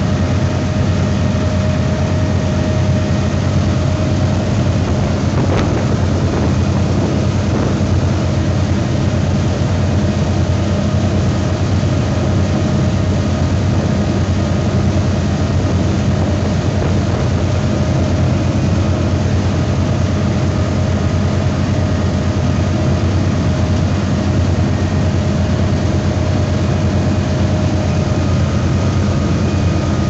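Motorboat engine running steadily at cruising speed, a constant low drone over the rush of churning water from the wake.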